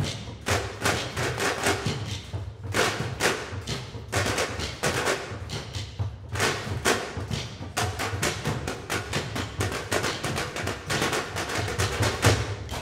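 Ensemble of metal trash cans and trash can lids played as drums with drumsticks, a dense, driving rhythm of many strokes a second over low thuds.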